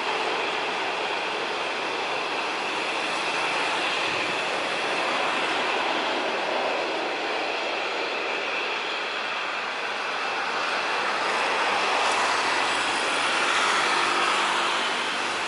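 Airbus A320-200's twin jet engines running at taxi power, a steady whine over a rush of noise that swells slightly near the end.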